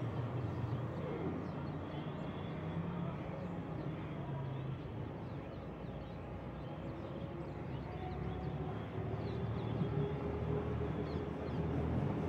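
Steady low drone of distant engine noise in open-air background sound, with a few faint high chirps in the second half.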